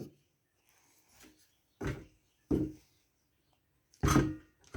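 A few short knocks and clinks of small metal engine parts and tools being moved about while rummaging for a nut: three separate clatters, the last and loudest near the end.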